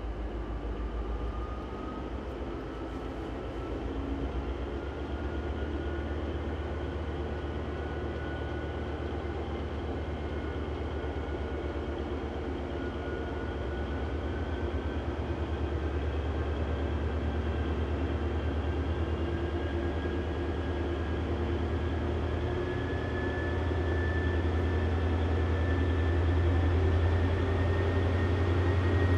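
Vossloh G2000 diesel-hydraulic locomotive pulling a freight train slowly towards the listener: a steady low engine hum that grows gradually louder, with a thin whine that slowly rises in pitch.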